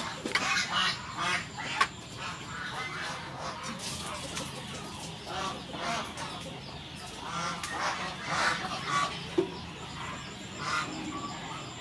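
Poultry honking repeatedly in short, irregular calls, with a couple of sharp clinks.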